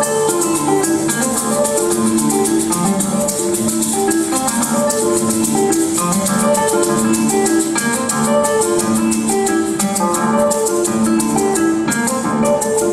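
Live acoustic trio music: a classical guitar plucking a melody over a strummed cuatro, with maracas shaking a steady, fast rhythm.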